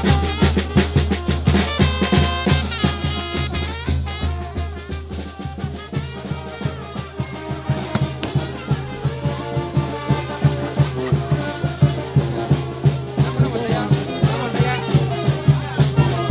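Mexican brass band (banda de viento) playing, with trumpets and trombones over a fast, steady bass beat. It goes a little softer in the middle, then builds again.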